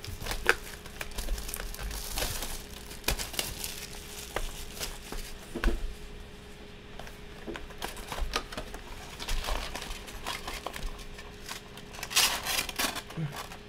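Plastic wrap and foil card packs crinkling as a sealed box of 2014 Topps Prime football cards is unwrapped and emptied, with small clicks and rustles of cardboard throughout and the loudest crinkling near the end.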